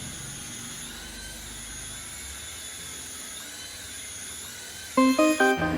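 Small electric motor of an RC toy whirring steadily with a high, slightly wavering whine. Music with plucked-sounding notes starts about five seconds in.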